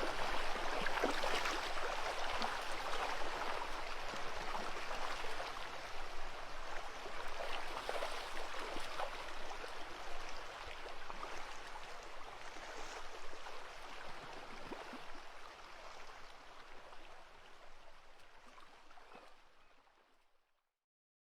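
Running stream water, a steady splashing hiss that fades out gradually and stops near the end.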